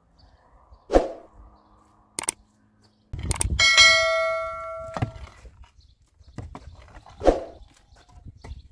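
A subscribe-button sound effect: a click and a bright bell ding that rings for about a second and a half, midway through. Two sharp knocks come about a second in and near the end.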